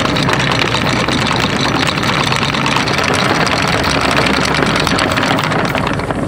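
Boat engine running while the anchor is set, with a dense rattle over it, probably the anchor chain and gear on the bow. The low engine note shifts about four and a half seconds in.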